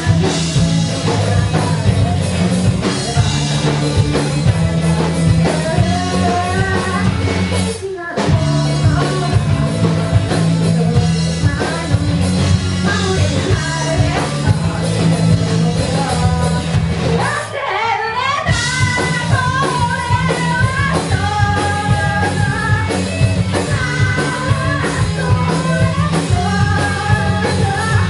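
A rock band playing live, with a lead vocal sung over the band. The band breaks off briefly twice: once for a moment about 8 seconds in, and again for about a second near the middle.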